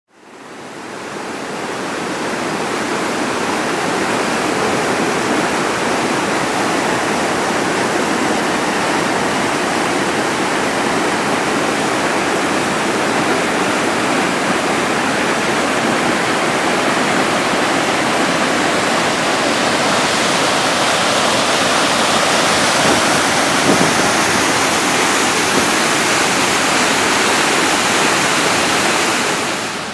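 Fast, turbulent water of a river in flood, rushing steadily; it fades in over the first couple of seconds.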